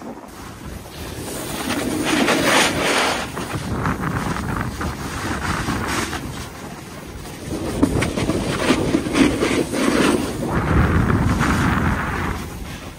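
Wind rushing over the microphone mixed with the scrape of edges sliding over packed snow during a downhill run, swelling and fading in long waves.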